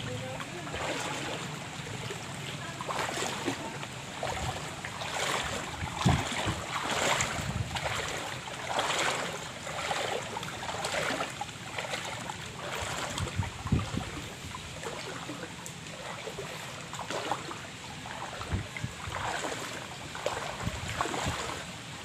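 Floodwater sloshing and swishing in repeated surges about once a second, as someone wades through it, with some wind buffeting the microphone.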